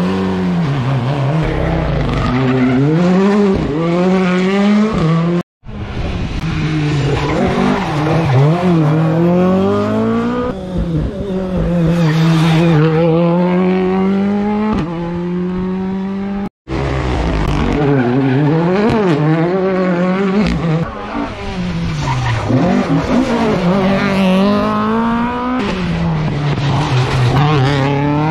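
Rally cars driven flat out on a tarmac stage, engines revving hard and falling back at each gear change and corner, one car after another, with tyre squeal. The sound breaks off twice, about five seconds in and about sixteen seconds in, as one car gives way to the next.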